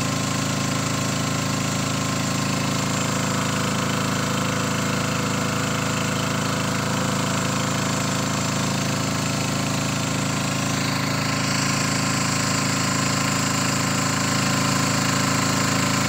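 The boat's engine running steadily under way, noisy, a little louder in the last couple of seconds.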